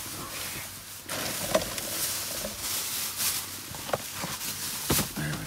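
Plastic garbage bags crinkling and rustling as hands dig through trash, with a few sharp knocks.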